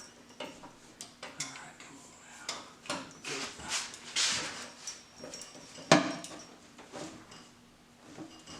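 Metal hand tools, a socket and breaker bar, clinking and clattering on the engine, with one sharp metallic crack about six seconds in.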